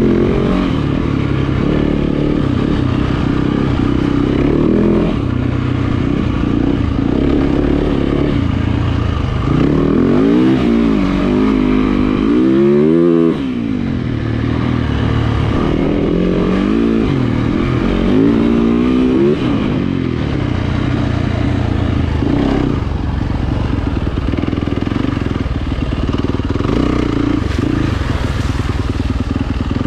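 A 2020 Yamaha YZ450FX dirt bike's single-cylinder four-stroke engine being ridden on trail. Its pitch rises and falls as the throttle opens and closes, with a run of quick revs up and down in the middle.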